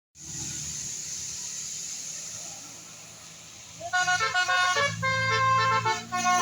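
Steady road and engine noise, then about four seconds in a bus's multi-tone 'telolet' air horn plays a quick chiming tune of several notes in short steps, loud over the engine.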